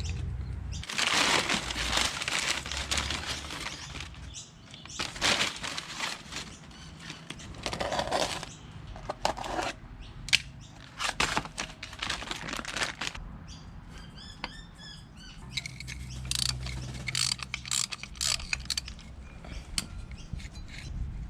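Workshop handling and tool noises during engine-mount work: irregular scrapes, rustles and sharp metallic clicks and clinks, with some bursts lasting a second or two.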